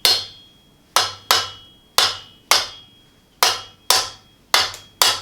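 A hammer striking metal on a BMX bike build, about ten blows, often in quick pairs roughly half a second to a second apart. Each blow is sharp, with a short metallic ring that dies away.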